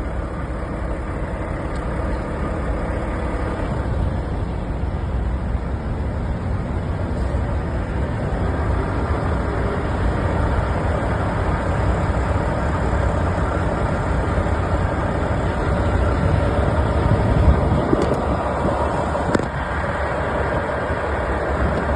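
Steady low rumble of an idling diesel truck engine, with a couple of short clicks near the end.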